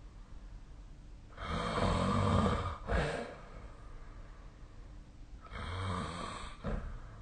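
A sleeping person snoring: two snoring breaths, one about a second and a half in and a softer one near the end. Each ends in a short, sharp catch of breath.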